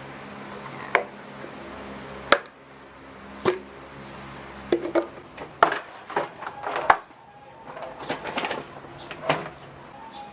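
Scattered clicks and knocks of plastic storage containers and their lids being handled and set down, about a dozen sharp taps over several seconds, over a low steady hum.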